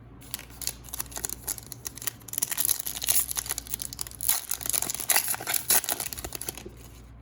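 A foil trading-card pack wrapper being torn open and crinkled, a dense run of crackling and rustling that is loudest in the middle and stops shortly before the end.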